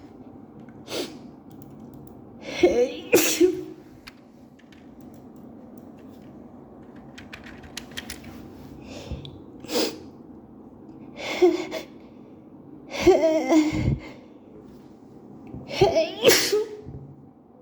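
A woman sneezing again and again in an allergic sneezing fit. The sneezes come singly and in quick pairs, with a lull of several seconds in the middle.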